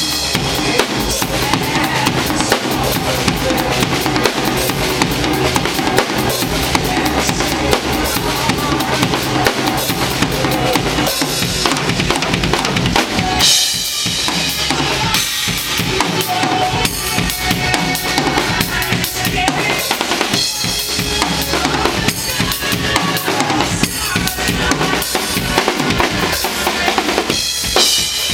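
Acoustic drum kit played fast and dense: bass drum and snare under a constant wash of cymbals. About halfway the low end drops out briefly, then a burst of cymbals comes in and the groove resumes.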